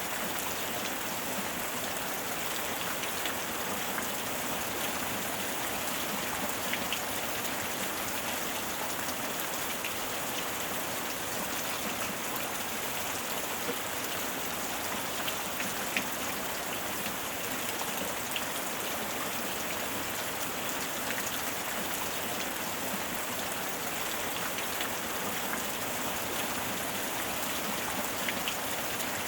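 Steady heavy rain falling on surfaces, a dense even hiss with scattered individual drops ticking through it.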